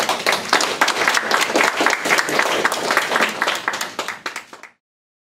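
Audience applauding, many hands clapping at once, tapering off and then cut off abruptly about four and a half seconds in.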